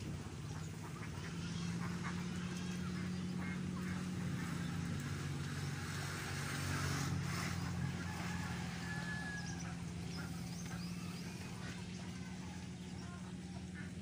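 Ducks quacking here and there over a steady low hum.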